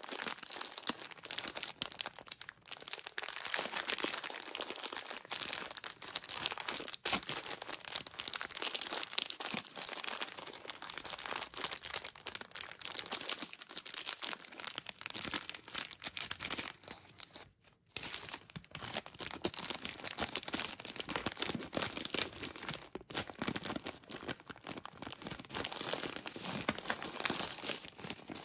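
Crinkling of a share-size M&M's plastic candy wrapper as it is handled and torn open along its serrated edge, with a brief pause about two thirds of the way through.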